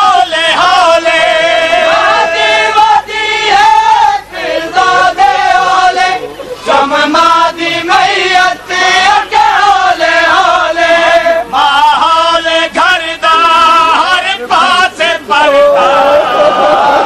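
Men chanting a Punjabi noha, a Shia mourning lament, in long sung lines that waver in pitch, with brief breaks between phrases.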